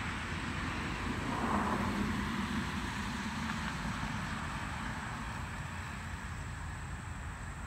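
Road traffic: a car driving past on the street, swelling about a second and a half in and then fading, over a steady low rumble.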